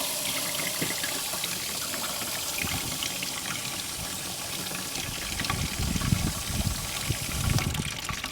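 Water spray hissing steadily as it is aimed up inside a plastic motorcycle rear mudguard, with louder splashing and knocking against the plastic in the last few seconds. The spray stops just after the end.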